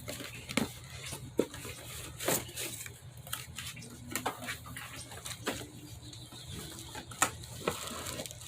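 Cardboard box and plastic packaging of an impact driver being opened and handled: irregular clicks, knocks and rustles, the sharpest at about half a second, one and a half, two and a half and seven seconds in.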